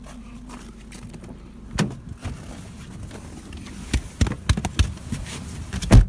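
A car engine idling with a low steady rumble, under a string of knocks and thuds as someone climbs into the car. The loudest thud, at the very end, fits the car door being shut.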